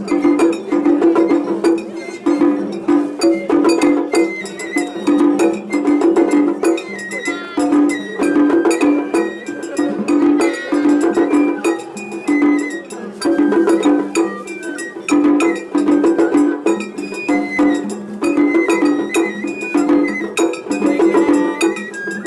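Japanese festival hayashi music played by a hayashi ensemble: a high bamboo flute melody over a steady beat of taiko drums and a small hand gong (kane).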